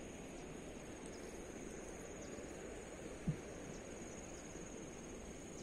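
Faint outdoor evening ambience: an insect's steady high-pitched trill over a low, even rumble, with one dull thump about three seconds in.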